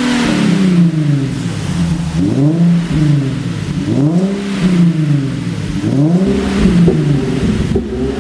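Nissan 370Z's 3.7-litre V6 exhaust being revved about four times, each rev rising and falling. As the revs drop it pops and crackles, the overrun pops of a pop-and-crackle tune.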